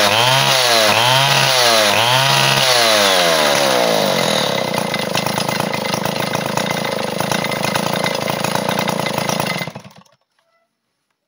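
Vintage Stihl Contra two-stroke chainsaw engine, revved up and down about three times, then dropping back to a steady idle. Near the end it is switched off and stops suddenly.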